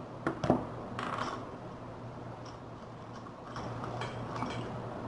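Small metallic clicks and scraping as an ALMONT key padlock is picked open: two sharp clicks near the start, a short scrape about a second in, then faint ticking of the pick against the pins.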